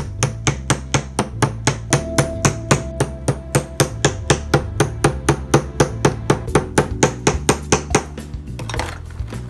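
Wooden mallet tapping a chisel into a plaster dig block, a fast, even run of sharp knocks, about four a second, chipping the plaster away. The tapping stops about a second before the end.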